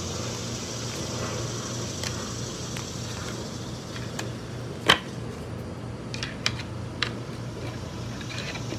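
Tarot cards being handled and shuffled: one sharp click just before halfway and a few lighter taps and clicks shortly after, over a steady low hum.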